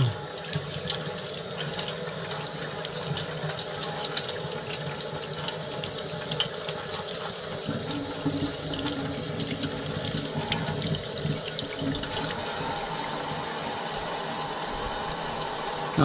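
Kitchen faucet running steadily into a stainless steel sink, the stream splashing over a plastic RC roll cage held under it to cool the part after heat-bending.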